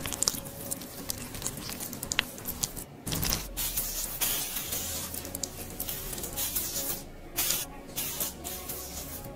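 Clear gel squelching softly under a spatula, then from about three seconds in a small skin razor scraping over cream-covered skin in long strokes of hissing noise, with short breaks between strokes.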